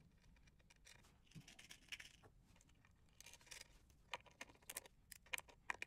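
Faint, scattered clicks and small metallic ticks of hand-fitted hardware: 4 mm lock washers and nuts being put on and loosely started on the mounting posts of a speaker crossover board.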